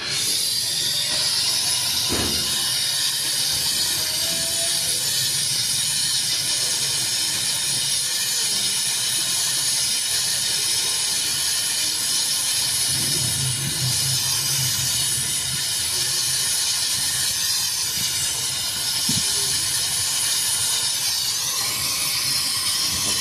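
Loud, steady hiss of gas rushing out under pressure during a refrigerator gas-line repair. It starts abruptly and holds level until it fades right at the end.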